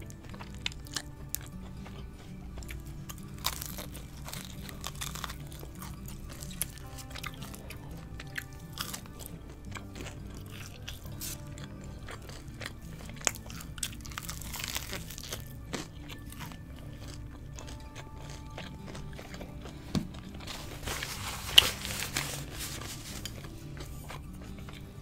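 Close-miked chewing and biting of crunchy, cheese-seasoned Korean fried chicken, with irregular crunches and a few louder ones, over soft background music.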